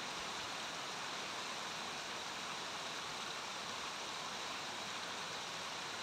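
Small brook babbling steadily, water spilling over a low rock step and over stones into a pool.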